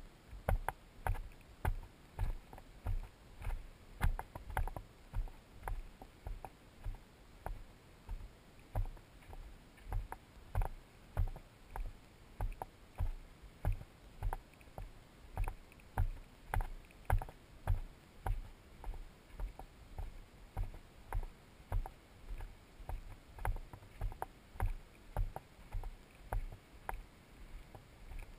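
Footsteps of a hiker walking steadily on a dirt and gravel trail, about two steps a second, each a dull thump with a light crunch.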